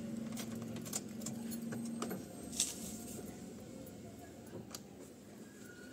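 Car keys clinking and small sharp clicks as the ignition and the inside door handle of a car are worked. A steady low hum cuts off about two seconds in, followed by a sharp click, the loudest sound.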